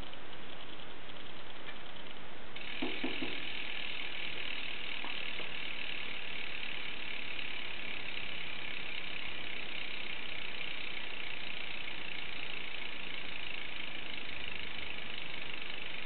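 Rear freehub of a 2013 Pro Lite Bracciano alloy wheel ratcheting as the wheel spins: light clicking at first, then about two and a half seconds in it turns suddenly into a fast, steady buzz from the freewheel pawls.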